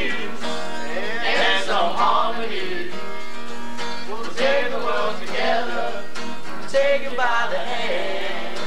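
Acoustic guitar strummed with voices singing along to it.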